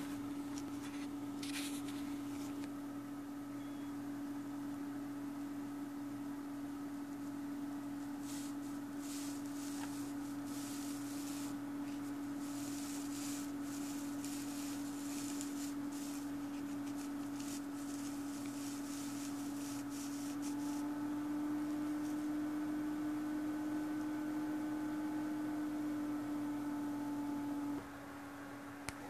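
A steady low hum throughout, with faint irregular scratchy rubbing in the middle stretch as a bare mouse circuit board on cardboard is slid across a fabric mouse mat by hand. Near the end the hum steps down in level.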